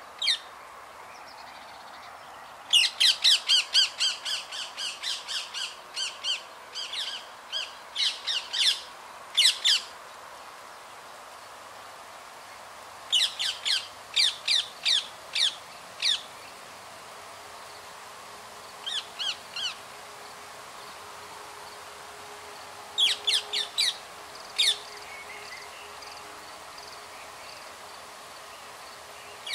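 Rose-ringed parakeet giving shrill, squawking calls in runs of short, sharp, rapidly repeated notes: one long run, then shorter groups of a few notes separated by pauses.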